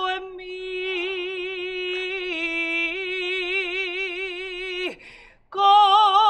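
Male flamenco singer singing a malagueña, holding one long wavering note that drops away about five seconds in. After a brief pause he starts the next phrase louder.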